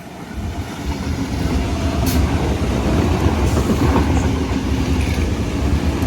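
Sydney Trains Tangara electric train running through the station, a heavy rumble of wheels on rail that builds over the first second or two and then holds loud, with a sharp clack from the rails about two seconds in.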